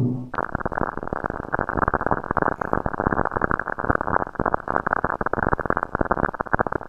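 Dense crackling and popping radio-style static, of the kind heard in space radio recordings played as sound. It starts abruptly just after the start and cuts off suddenly at the end.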